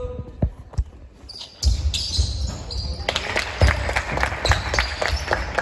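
A basketball bouncing on a gym floor, with a few separate thumps in the first second. From about a second and a half in, the sound turns busier and louder, with more thumps and quick sharp clicks of play on the court.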